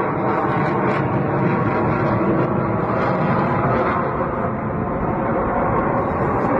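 Sukhoi Su-57 fighter's twin jet engines during a display flight: a loud, steady rush of jet noise.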